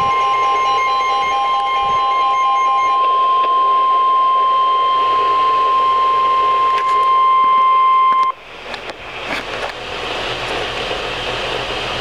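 NOAA weather radio sounding the steady 1050 Hz warning alert tone that precedes a broadcast warning, with a pulsing beep over it for the first few seconds. The tone cuts off suddenly about eight seconds in, leaving the broadcast's hiss and static.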